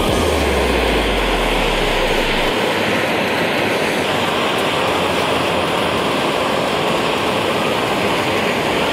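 Gas torch flame hissing steadily at full blast. A low hum underneath drops away after about two seconds.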